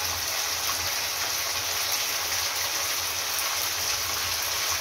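Chicken pieces frying in hot oil with cumin seeds in a pan: a steady sizzle.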